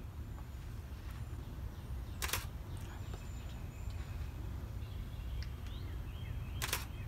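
Canon DSLR shutter firing twice, about four seconds apart, over a steady low background rumble.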